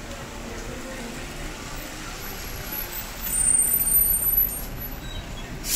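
Road traffic passing on a wet city street, over a steady hiss of rain and tyres on wet asphalt; one vehicle passes louder for about a second, some three seconds in.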